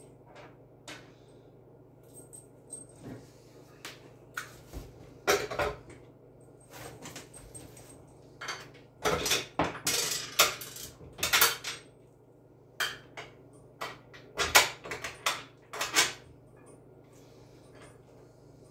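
Metal and plastic parts of a chicken plucker clinking, knocking and rattling as they are fitted together by hand. Irregular clatter in several bursts, busiest in the middle.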